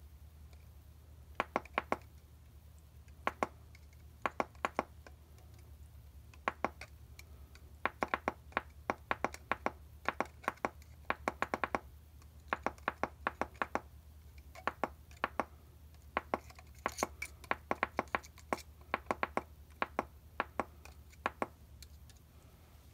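Runs of small, sharp clicks and ticks, several a second with pauses between them: metal parts being handled while working on a small live-steam model locomotive. A steady low hum runs underneath.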